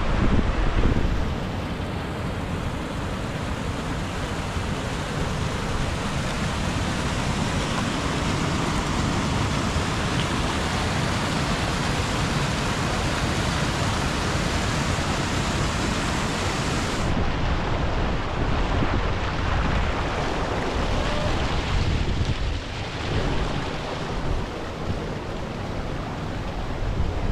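Wind buffeting the microphone: a steady, loud rushing noise with a low rumble, which turns duller about two-thirds of the way through.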